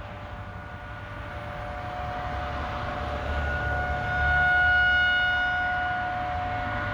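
Outdoor tornado warning siren wailing at one steady pitch, growing louder about four seconds in and then slowly fading. The siren is the community's tornado alert going off, which the listener hopes is only a test.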